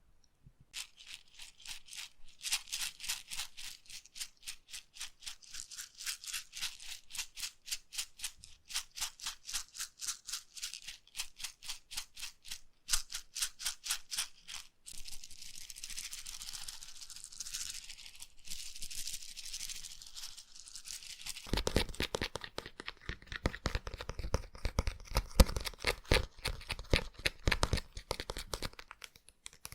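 Slime worked over an ear-shaped binaural microphone for ASMR ear cleaning: quick, rhythmic squishing strokes at first, then a stretch of steadier rustling. About twenty seconds in come denser, fuller wet clicks, pressed close against the mic.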